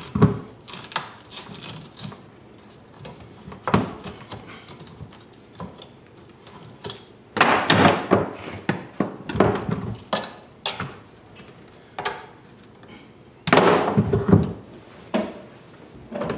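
Irregular knocks, clicks and bumps from a boiled cattle skull and hand tools being handled against a plastic utility sink, with two longer spells of scraping and rattling about seven and thirteen seconds in.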